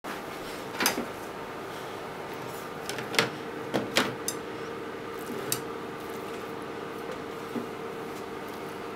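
Several short clicks and knocks of wooden chopsticks, a kitchen knife and blocks of fried tofu being moved about and set down on a plastic cutting board. The loudest come about a second in and around three to four seconds in, over a steady background hum.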